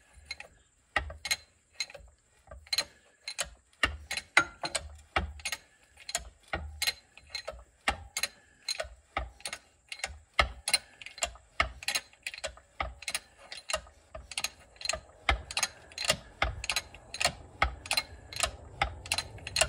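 Hand-pumped bottle-jack shop press working in repeated strokes, a sharp click about twice a second, as it presses a new bearing and shaft into a cast iron water pump housing. The clicks come closer together, with a low rumble underneath, in the last few seconds.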